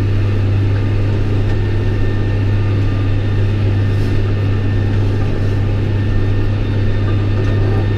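John Deere 6110R tractor's four-cylinder diesel engine running steadily under load while mowing thick hay with a PTO-driven disc mower, heard from inside the cab as a constant low drone.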